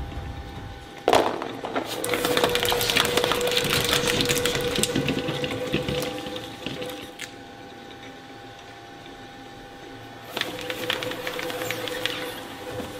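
Electric twin-shaft shredder with steel cutter discs tearing up soft rubber squeeze toys: a sudden loud crack about a second in, then dense crunching and crackling over a steady motor whine for several seconds. The crunching dies away to the motor running on its own, then starts again near the end as more material is fed in.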